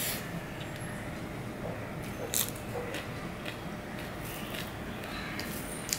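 Eating sounds: chewing a mouthful of rice and curry and fingers working rice on a steel plate, with a few short sharp clicks, the loudest a little over two seconds in.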